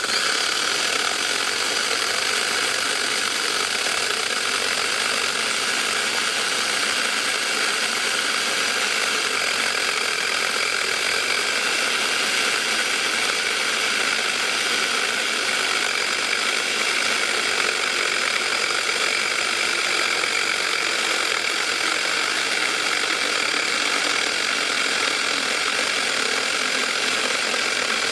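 Battery-powered 6-inch mini chainsaw running steadily at full speed, its motor and chain whining as it cuts through a log.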